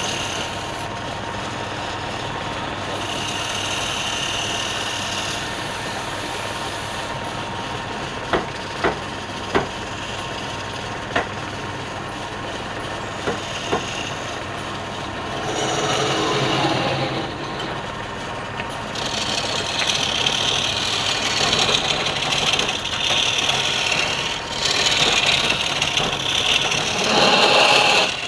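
Wood lathe running steadily while a turning tool scrapes and cuts the spinning wood. A few sharp clicks come in the middle, and the cutting grows louder and more continuous in the last third.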